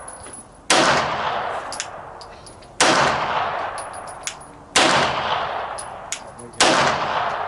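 Four gunshots from a semi-automatic firearm, fired about two seconds apart, each with a long echoing tail. Faint short clicks sound between the shots.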